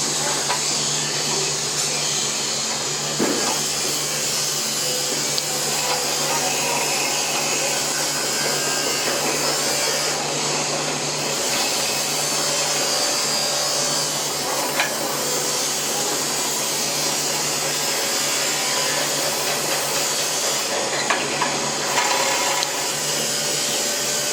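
A workshop machine running steadily with a whooshing noise and a low hum, with a few faint light knocks.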